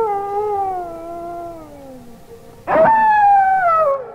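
Two long wolf howls, each sliding slowly down in pitch: the first is already sounding and fades out about two seconds in, and a second, higher and louder one starts just before three seconds in and ends near the end.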